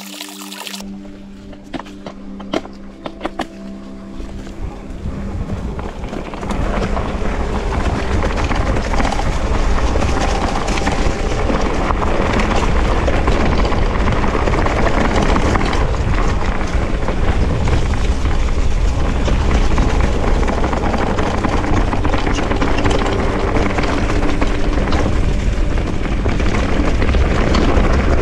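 Wind rushing over the microphone while riding a mountain bike, with tyre and frame rattle. A few sharp clicks come in the first seconds, and it gets louder about six seconds in.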